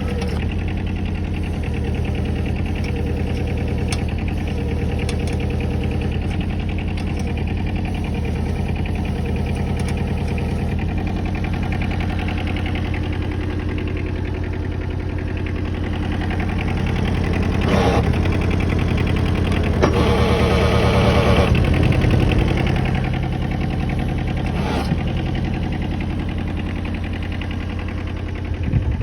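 Kobelco SK09 mini excavator's small diesel engine running steadily with its hydraulics being worked. It gets louder and strains twice in the second half as the hydraulics take load.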